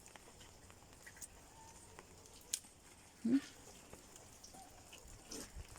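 Mostly quiet background with a few light clicks, and a short low grunt-like call a little past the middle, with a fainter one near the end.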